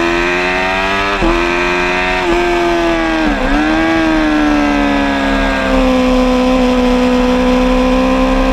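Suzuki GSX-R750 inline-four engine at racing revs, heard from on board the bike. The note climbs, dips briefly twice, then sweeps down and back up about three and a half seconds in, before settling to a lower, steady note as the bike slows into a corner.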